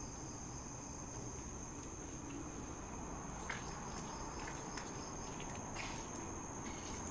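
Night insects chirring in one steady, high-pitched drone, with a few faint clicks scattered through it.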